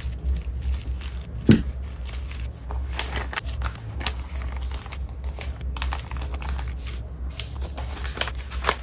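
Tissue paper rustling and crinkling as it is folded, then a paper gift bag and a paper bubble mailer being handled, in short irregular rustles. A single soft thump about a second and a half in.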